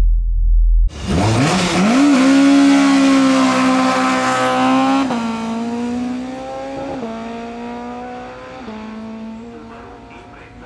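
Suzuki Swift hillclimb race car's engine pulling hard at high revs, starting about a second in. It changes gear three times, the pitch stepping down at each change, and fades steadily as the car climbs away.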